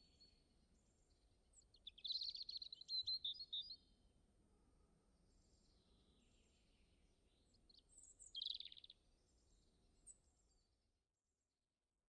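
Small birds chirping in short runs of quick high notes, about two seconds in and again around eight seconds, over faint low background noise that cuts off to silence near the end.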